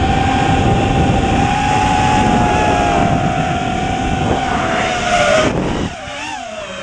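FPV racing drone's electric motors and propellers whining at a steady high pitch over a rush of wind. About five and a half seconds in the whine dips and then wavers up and down, and the wind noise falls away.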